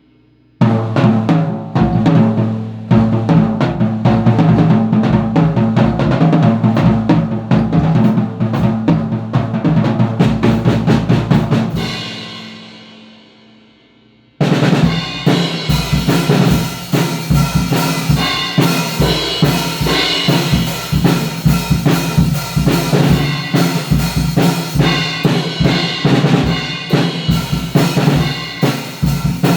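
Drum kit played freestyle: quick snare and bass drum patterns, rolls and rimshots. The playing stops about twelve seconds in and rings away, then starts again abruptly a couple of seconds later.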